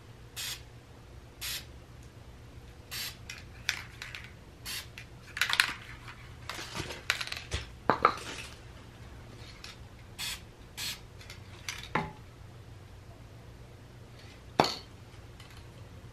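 Aerosol can of black spray paint spraying a wheel rim in a dozen or so short hissing bursts, with a few sharp metallic clinks between them; the loudest clink comes near the end.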